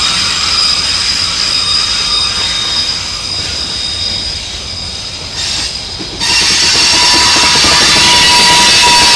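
Freight cars rolling past on a tight curve, their steel wheel flanges squealing against the rail in several high, steady tones over the rumble of the wheels. The sound eases off for a few seconds, then comes back louder about six seconds in, when a lower squeal tone joins.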